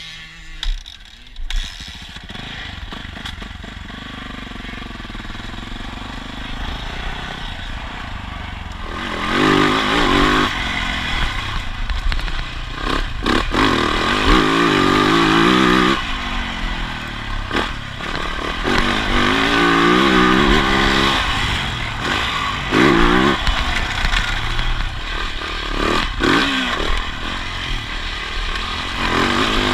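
Dirt bike engine running at low revs for the first several seconds. From about nine seconds in it revs hard, rising and falling in pitch again and again as the bike is ridden over the track.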